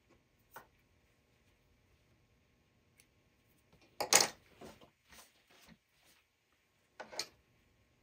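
Scissors snipping off thread ends, with the fabric being handled: a few faint clicks, a louder short burst about four seconds in followed by a few smaller ones, and another short burst near the end.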